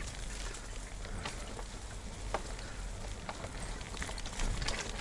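Mountain bike rolling along a damp dirt trail, its tyres crackling over twigs and leaves with irregular ticks and rattles, a louder cluster near the end, over a steady low rumble.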